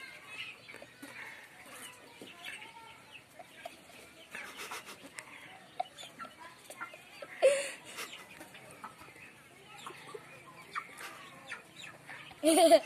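Domestic chickens clucking in short, scattered calls, with a louder call about halfway through and a burst of louder calls near the end.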